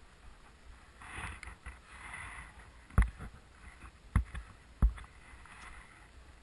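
Sliding downhill over snow: a hiss of snow under the skis or board about a second in, then three sharp thumps, about a second apart, near the middle and end.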